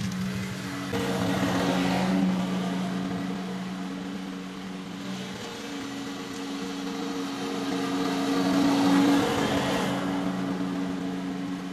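Small petrol engine of lawn-care equipment running at a steady speed. It grows louder and fainter as it moves, and is loudest about nine seconds in.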